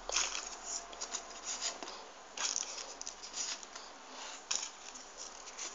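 Folded paper triangle units of a 3D origami model being pressed and slid into place by hand: a series of short, dry paper rustles and crinkles coming in irregular bursts.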